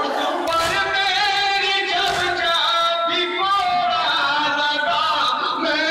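Male voices chanting a noha, an Urdu mourning lament, in unison, with sharp thumps of hands striking chests in matam at intervals.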